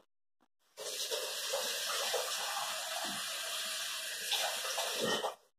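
Kitchen faucet running water into the sink: a steady rush that is turned on about a second in and shut off near the end.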